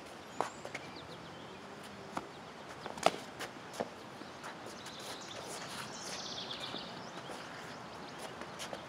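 Footsteps of two fencers on a hard court, with a few sharp clacks of practice longswords striking each other, the loudest about three seconds in. A bird chirps briefly a little past the middle.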